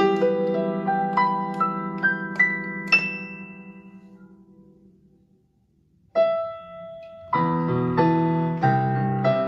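Background piano music: a climbing run of notes that rings out and fades to silence about five seconds in, then a single held note, and the piano playing resumes near the end.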